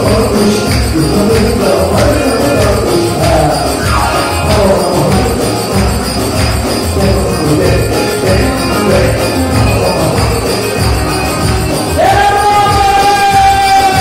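A man singing an upbeat song into a microphone over music with a steady drum beat. About twelve seconds in he holds one long note with a slight waver, bending it down at the end.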